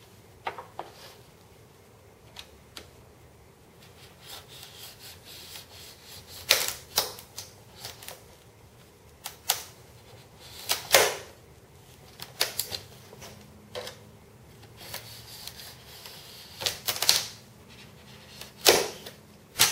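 Snap-off knife cutting through the glass-fibre skin of a moulded wing along a steel ruler: repeated short, irregular scraping strokes, faint at first and louder from about six seconds in.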